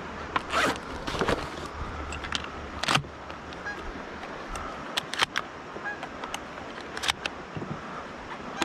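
Gear and shotgun handling: a zipper-like rasp in the first second or so, then a run of sharp clicks and knocks as shells are loaded into a shotgun, over a steady hiss.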